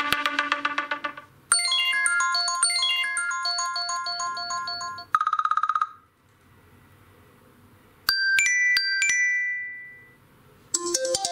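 iPhone SE 2020 stock ringtones playing one after another. One ends about a second in, and a melodic pattern of repeated electronic notes follows. Next comes a short fast-pulsing tone, then a few ringing chime strikes that die away, and another ringtone starts near the end.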